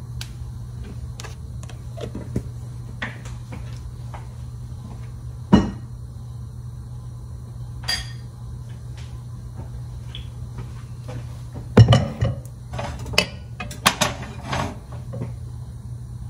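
Kitchen handling noises from a metal spoon and a stainless wok: scattered knocks and clinks, the loudest about six seconds in and a cluster around twelve to fourteen seconds in, over a steady low hum.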